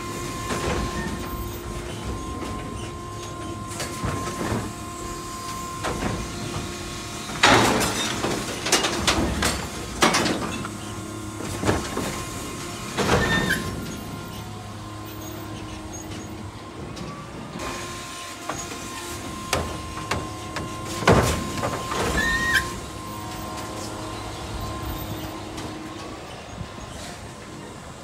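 Electric Mack LR New Way Sidewinder side-loading garbage truck working its automated arm: a steady electric hum, with loud clusters of bangs and clangs as carts are lifted, dumped into the hopper and set back down, once about a third of the way in and again about three-quarters through.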